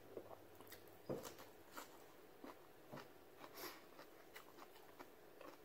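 Faint mouth sounds of a person chewing beef with the mouth closed: scattered soft clicks and smacks, the loudest about a second in.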